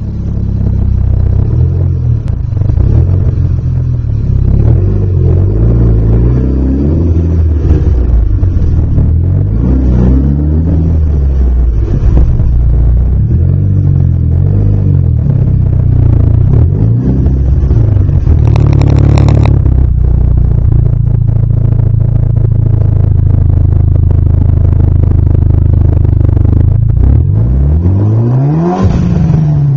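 Mitsubishi Lancer Evolution IX's turbocharged 4G63 four-cylinder running through a Megan Racing exhaust with the catalytic converter deleted: a loud, deep idle broken by several short throttle blips in the first dozen seconds, a brief louder burst about two-thirds through, and one rev rising and falling near the end.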